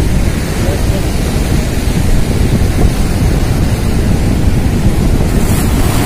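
Wind buffeting the microphone over sea waves washing and splashing against shoreline rocks, a steady heavy rumble.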